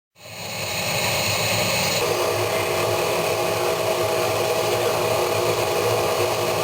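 A motor-driven workshop machine running steadily, cutting in abruptly at the start.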